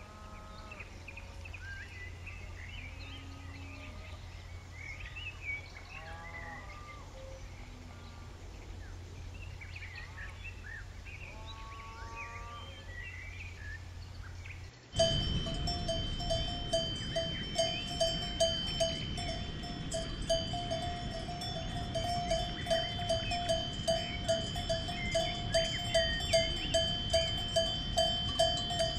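A bell on a grazing cow clanking in a steady rhythm, about two strikes a second, starting suddenly about halfway through. Before it, faint bird chirps over a low steady hum.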